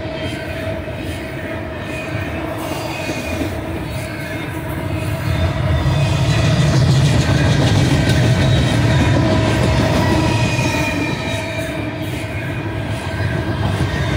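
Double-stack intermodal well cars rolling past on the mainline: a steady rumble of steel wheels on rail with thin, high wheel-squeal tones over it. The rumble swells louder a few seconds in and eases off again near the end.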